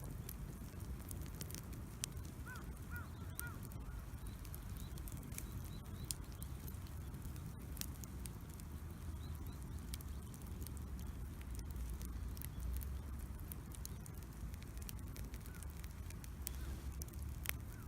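Wood campfire crackling, with scattered sharp pops over a steady low rumble of the flames. A few short, high squeals come about three seconds in.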